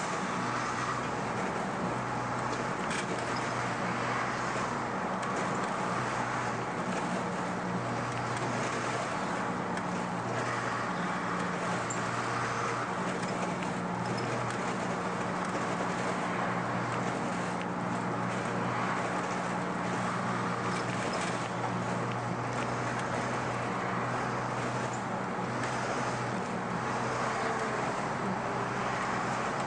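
2002 MAN 12.223 bus's six-cylinder diesel engine running steadily at a cruise, heard from the driver's seat over a constant hiss of road and tyre noise.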